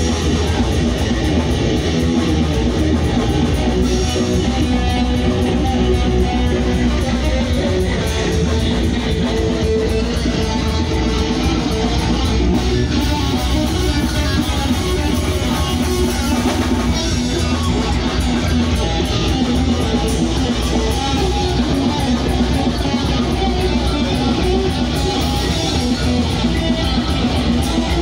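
Live rock band playing at full volume: electric guitar, bass guitar and drums with fast, steady cymbal strokes, without a break.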